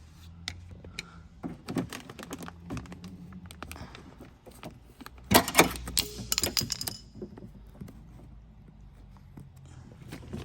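A long flathead screwdriver clicking and scraping against the plastic clip and door-handle parts inside a 2022 Toyota GR86 door while prying to release the handle cable clip. The clicks are irregular, with a dense burst of sharp clicks and a brief high scrape about five to seven seconds in.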